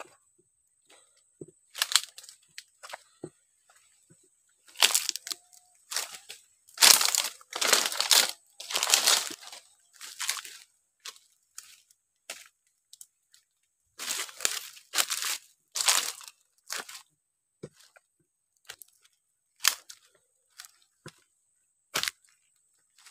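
Dry leaf litter and twigs crunching and rustling in irregular bursts, with a few sharp snaps, as someone moves through them among mangrove roots.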